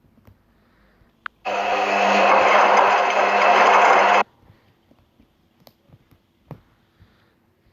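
A small electric motor clicks on and runs loudly and steadily with a whirring hum for about three seconds, then cuts off abruptly.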